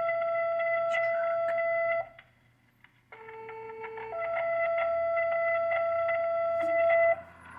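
Two-tone sequential radio paging tones, each pair being the code that sets off one station's siren. A long steady tone ends about two seconds in. After a second's gap, a short lower tone is followed by a long higher one lasting about three seconds.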